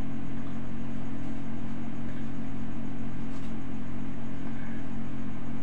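Steady low hum with an even hiss of background noise, unchanging in level, with one faint tick about three and a half seconds in.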